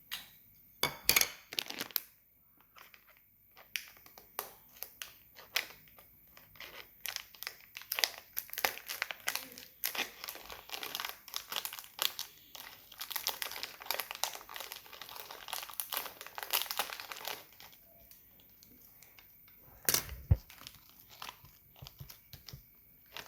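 Crinkly packaging of a blind box being handled and torn open by hand, a long run of rapid crackles that is densest in the middle, with a single louder knock near the end.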